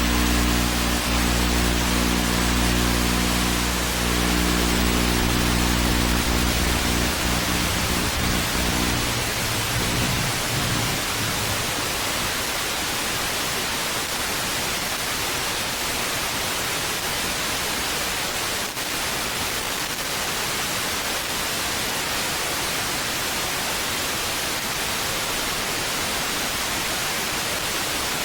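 Steady loud hiss of noise. Under it, a low steady hum of several tones runs for the first nine seconds or so, then breaks up and fades out.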